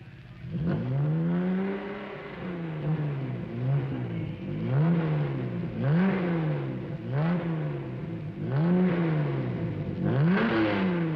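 Jaguar straight-six car engine revved up and down over and over, its pitch climbing and falling away about seven times, beginning about half a second in.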